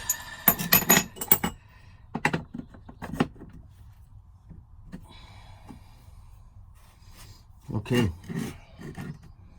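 Steel knife blade scraped across a whetstone in freehand sharpening strokes, a quick run of short, bright strokes in the first second and a half, then two more and a fainter, longer stroke a few seconds later.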